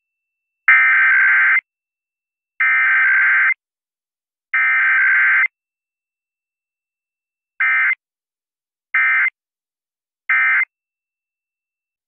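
Emergency Alert System SAME data bursts for a Required Weekly Test: three buzzy, screechy data bursts about a second each (the header), then after a pause three short bursts (the end-of-message code). No attention tone or spoken message comes between them.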